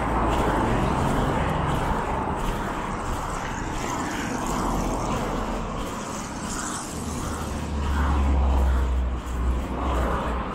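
Road traffic: cars driving past on a wide street, a steady wash of tyre and engine noise, with a deeper rumble that swells about eight seconds in.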